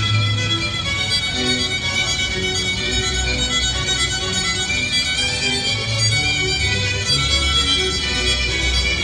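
Concerto grosso: violin-led string music playing continuously, with quick-changing melody notes over a moving bass line.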